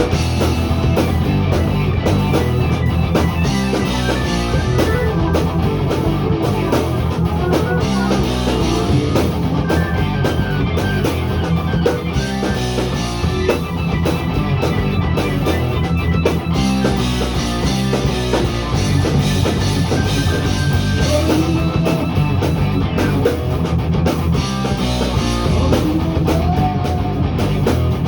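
Rock music with drum kit and electric guitar playing continuously and loud, with a steady beat.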